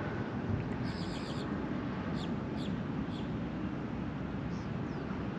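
Steady wind noise with small birds calling faintly over it: a quick run of high repeated notes about a second in, a few short high chirps over the next two seconds, and two more near the end.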